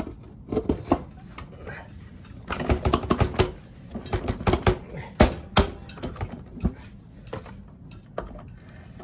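Metal clicks and knocks of a scooter's rear wheel with a chrome hubcap being worked onto its hub, irregular and busiest in the middle, with the sharpest knocks a little past five seconds in.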